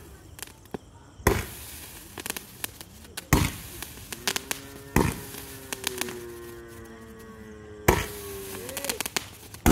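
Sivakasi 30-shot 'Peacock Dance' firework going off, with four sharp bangs about two seconds apart and crackling between them as its shots fire.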